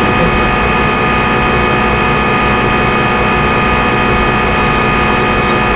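Simulated CNC lathe machine sound from the Swansoft SSCNC simulator, with the spindle running during a G71 turning cycle: a steady mechanical hum with several constant whining tones.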